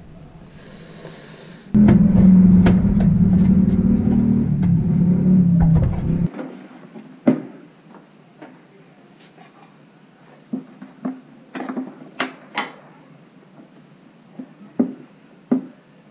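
A short hiss, then a loud steady hum that cuts off suddenly. After it, a car's plastic headlight assembly is worked loose by hand, giving a string of sharp separate clicks and knocks.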